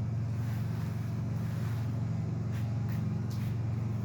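Steady low mechanical hum, like a motor running, with a few faint clicks over it.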